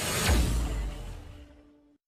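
Cinematic transition sound effect: a whoosh that swells into a deep boom just after the start, then fades away over about a second and a half and cuts off near the end.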